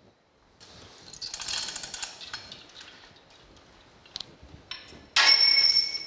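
Manual chain hoist being worked to take up a lifting sling: the chain rattles through the hoist with fast ratchet clicks, then a louder metallic clatter with some ringing near the end.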